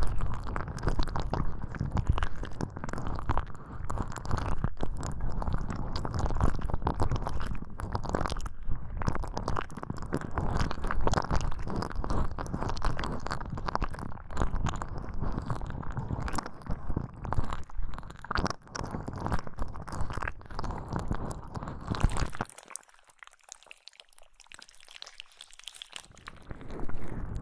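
Close-up binaural ASMR ear-cleaning sounds: dense scratching and rubbing right at the ear, crackly and low. They stop for about three seconds near the end, then start again.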